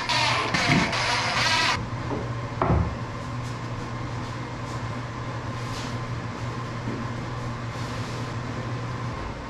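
A cordless impact driver hammers a screw into a plywood cabinet carcass for about the first two seconds, then stops abruptly. A single wooden knock follows, then a steady low shop hum with faint knocks as the cabinet box is handled.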